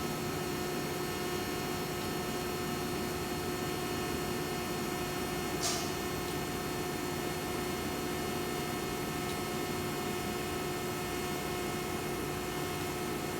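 Welding arc during a root pass on a pipe: a steady buzzing hum over an even hiss, with one brief sharp tick about five and a half seconds in.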